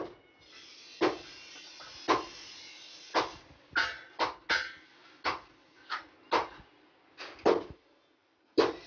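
Hammer blows on a flat iron tawa (griddle) as a handle bracket is fixed to its rim: about a dozen sharp metallic knocks at uneven intervals, each with a short ring.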